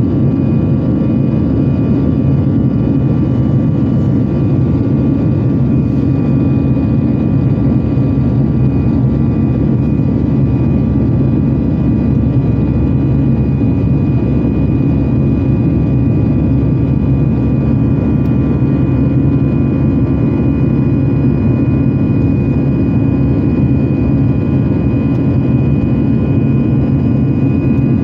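Airbus A320 jet engines running steadily, heard inside the passenger cabin as a loud, even drone with a heavy low hum and a steady high whine that strengthens a little near the end.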